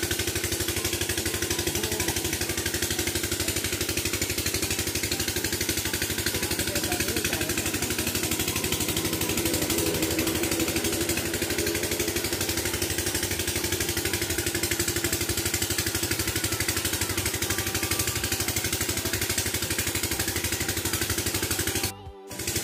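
A small engine running steadily with a rapid, even pulse, dropping out briefly near the end.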